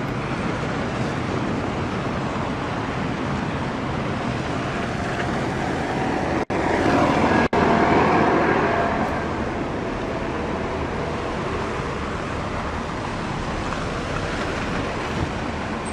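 Road traffic on a city street: a steady wash of engine and tyre noise, with one vehicle passing closer and louder about seven seconds in. The sound drops out twice for an instant during the pass.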